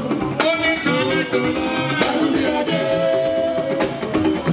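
Live juju band music: electric guitars and a drum kit playing a steady groove.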